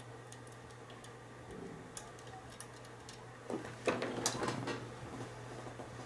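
Pick clicking and scraping against the pins of a brass Mul-T-Lock interactive lock core under tension, with scattered small sharp ticks over a steady low hum. About three and a half seconds in comes a louder spell of metallic scraping and rattling that lasts about a second.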